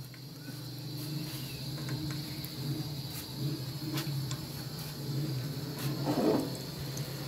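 Chopped garlic frying gently in hot desi ghee in a pan: a faint steady sizzle with a few small pops, over a low steady hum.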